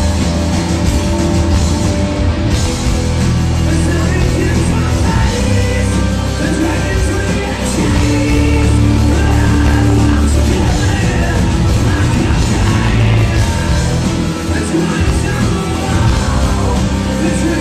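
Rock band playing live and loud: distorted electric guitars, bass and drums, heard as a crowd recording in a club.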